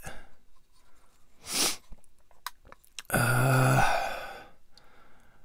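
A man's voiced sigh: a hummed "hmm" about three seconds in that trails off into a long exhale, after a short breath earlier on. There are a couple of faint clicks from hard plastic model parts being handled.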